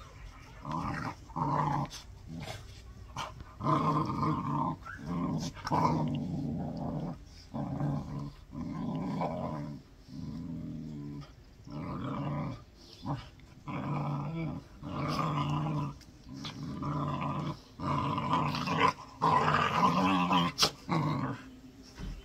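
Pit bulls play-wrestling and growling: a long run of low, rasping growls, each lasting up to about a second and a half, with short pauses between.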